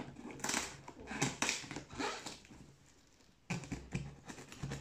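Grey duct tape being picked and peeled off a cardboard box in several short rips, with a brief pause before the last second.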